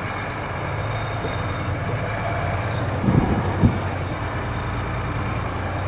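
Mercedes-Benz Unimog U2450 6x6 truck's diesel engine running steadily under load as it climbs a slope, with a few low knocks about three seconds in.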